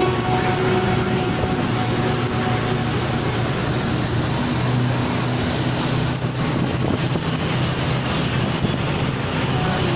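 A boat's engine running steadily with a low hum, under a constant rushing noise from the moving boat.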